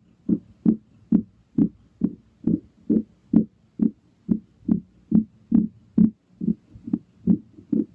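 A steady, heartbeat-like low thumping, about two beats a second, evenly paced throughout.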